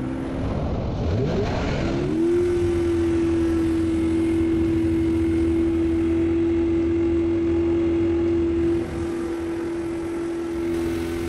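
Toyota Supra's inline-six engine revved up with the throttle held open, exhausting into a giant balloon fitted over the tailpipe. The revs climb over the first two seconds, then hold at a steady high note, easing slightly near the end.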